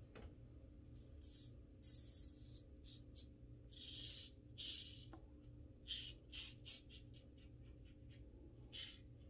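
Shavely twist-handle double-edge safety razor scraping through lathered stubble on the cheek in a run of short, faint rasping strokes.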